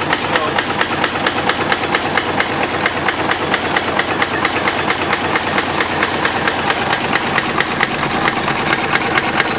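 Deutz BF12L413F air-cooled twin-turbo V12 diesel running steadily at idle with a rapid, even clatter, over the rush of its big cooling fan. The owner says the engine has a knock somewhere near the front that will mean a teardown.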